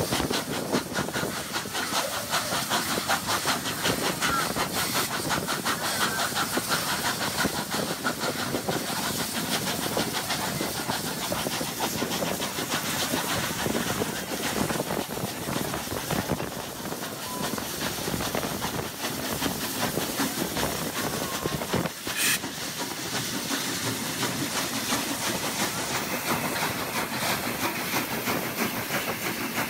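Two steam locomotives working at speed side by side, the C36 class 4-6-0 3642 on the adjacent track and 3016 at the head of the train: rapid exhaust beats over a steady hiss of steam and the clatter of wheels on rail.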